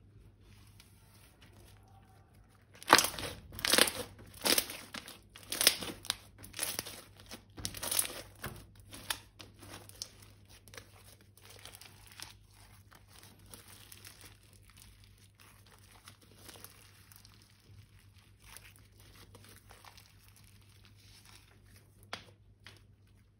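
Crinkling and crackling handling sounds, starting about three seconds in as a run of about ten loud crinkles roughly every half second, then settling into softer, steady crinkling with a single sharper click near the end.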